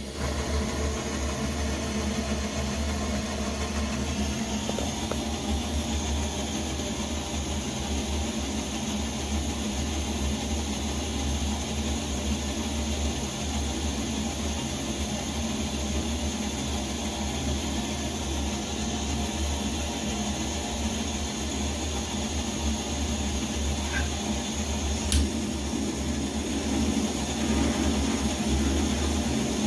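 Coleman 533 gasoline camp stove's pressurized burner running, a steady rushing noise. There is a single sharp click a few seconds before the end, and near the end a handheld gas torch's flame is added into the burner and the noise grows a little louder.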